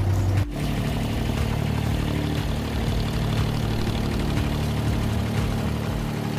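Abra water taxi's diesel engine running steadily with a low hum. About half a second in, the level drops slightly and the pitch of the hum changes abruptly.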